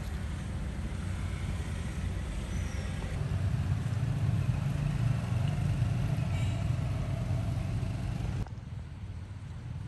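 A steady low rumble, louder in the middle, that drops abruptly about eight and a half seconds in.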